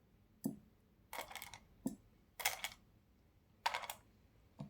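Cleaning of degreaser-soaked bicycle hub parts: three short hissing strokes about a second apart, with faint small knocks between them.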